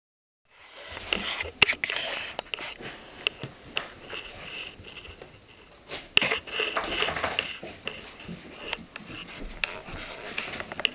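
Litter of red Standard Poodle puppies stirring as they wake in a wooden whelping box: sniffing and snuffling with rustling and many short sharp clicks, louder about a second in and again around six seconds in.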